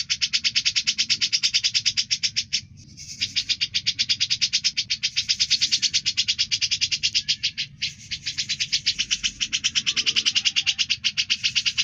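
Cucak jenggot (grey-cheeked bulbul) calling in a fast, even, high rattle of about a dozen notes a second. The rattle breaks off briefly twice, about a quarter of the way in and about two-thirds of the way in.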